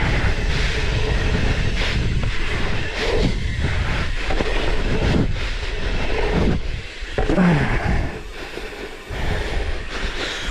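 Wind buffeting the microphone over the rolling tyre noise of a dirt jump bike being ridden around a sandy dirt jump track, with scattered knocks. The loudness dips a little after about seven seconds.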